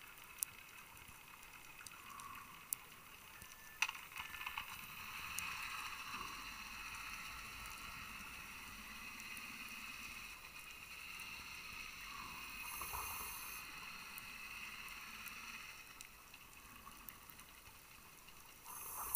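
Scuba regulator breathing underwater: exhaled bubbles gurgling for several seconds, with a brief hissing inhale about two-thirds of the way through and another near the end. A few sharp clicks sound in the first four seconds.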